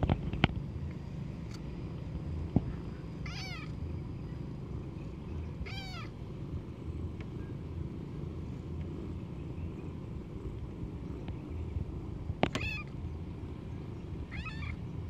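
Calico kitten giving four short, high-pitched mews, each rising and falling in pitch, spaced a few seconds apart, over a steady low background rumble, with a few sharp clicks.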